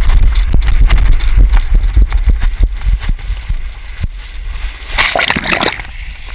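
Seawater splashing and sloshing right against an action camera as it is carried through the shallows into the sea, with many sharp splashes over a heavy low rumble in the first half and a louder burst of splashing about five seconds in.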